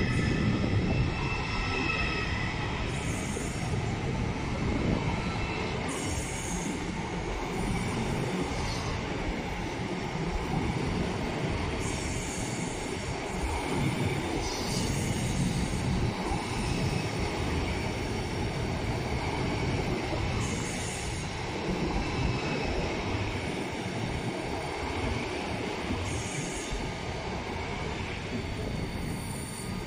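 Deutsche Bahn ICE high-speed train rolling out along the platform: a steady rumble of wheels on rails as the carriages go by. A brief high whine sounds in the first second or two, and short high squeals come every few seconds.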